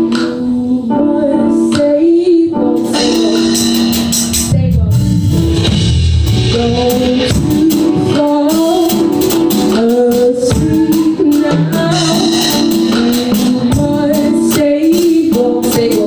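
Live band music with a woman singing over sustained chords. About three seconds in, quick, steady percussion strokes join, and a heavier bass comes in a second or so later, filling out the groove.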